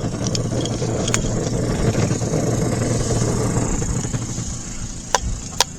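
Small RV washing machine running with objects rattling and grinding in its drum, a steady mechanical rumble with a motor hum that eases off about four seconds in, then a couple of sharp knocks near the end.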